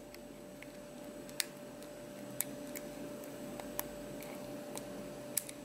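Small metallic ticks of a hook pick lifting the pin tumblers of a Union 5-pin oval cylinder under light tension: about five sharp ticks spaced roughly a second apart.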